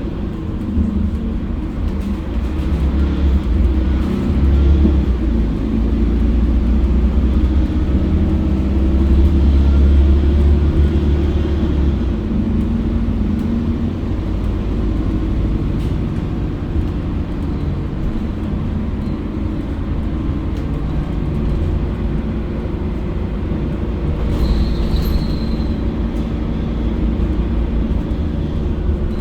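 Mercedes-Benz OC500LE diesel bus running on the road, its engine and drivetrain giving a strong low rumble that is heaviest for the first dozen seconds, as if pulling under load, then eases to a steadier run. A brief high-pitched tone sounds about 25 seconds in.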